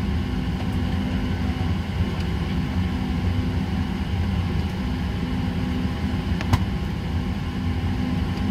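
Steady low cabin hum of a parked Boeing 737-800 with its engines not yet started, the sound of the cabin air supply and aircraft systems running. A single short click about six and a half seconds in.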